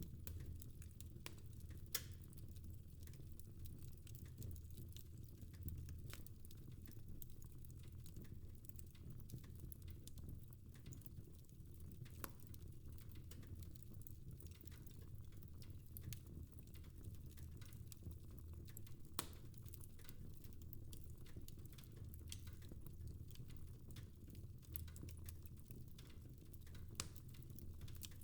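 Fire crackling in a fireplace: scattered sharp pops and ticks, a few louder ones standing out, over a faint steady low rumble.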